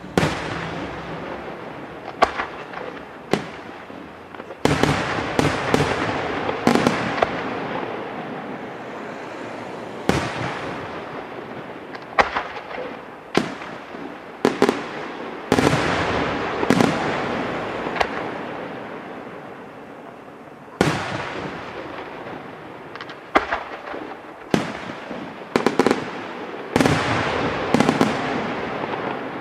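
Aerial firework shells bursting in a long string of sharp bangs, some in quick clusters of two or three, each trailing off over a couple of seconds before the next.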